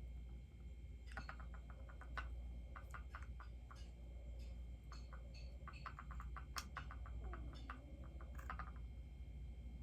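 Faint, irregular small clicks and light taps as a boxed bobblehead and its packaging are handled and unpacked.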